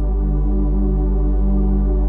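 Ambient electronic background music: a steady low drone under held synthesizer notes that change about twice a second.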